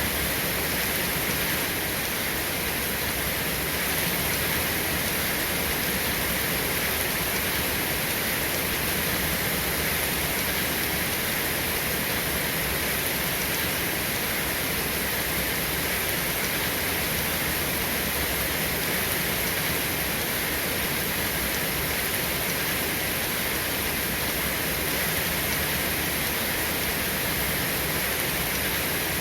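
Steady rain falling, an even hiss with no let-up or single loud drops.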